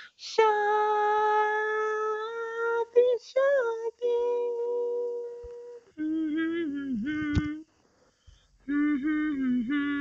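A lone voice singing wordlessly without accompaniment: long held notes, then two lower, wavering phrases with a short pause between them. A sharp click sounds about seven seconds in.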